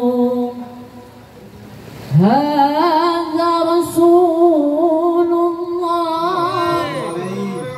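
Solo male voice singing an Arabic devotional syair, amplified through a microphone. A held note trails off, and after a short pause a new phrase begins about two seconds in, sustained as one long melismatic line with a wavering, ornamented pitch.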